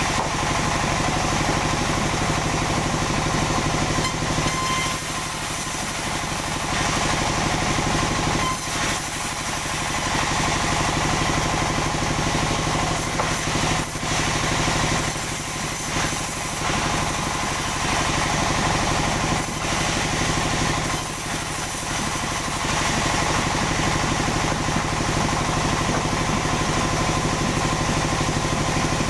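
Sawmill machinery running steadily: an engine-driven saw with a constant hum and a haze of cutting noise, dipping slightly in level now and then.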